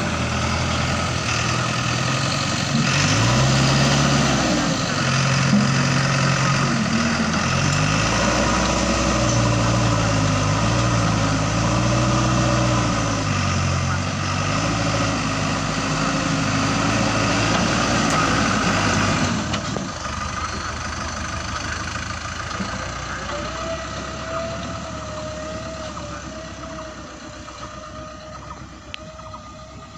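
JCB 3DX backhoe loader's diesel engine working, its pitch rising and falling again and again as the load changes. About two-thirds of the way through it drops back to a quieter, steadier run.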